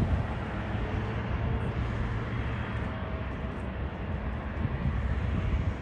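Steady jet aircraft noise: a continuous low rumble and hiss of jet engines with a faint steady hum, holding level throughout.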